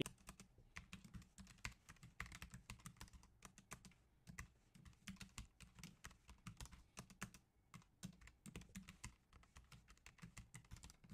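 Faint typing on a computer keyboard: a quick, irregular run of key clicks with brief pauses, as code is entered line by line.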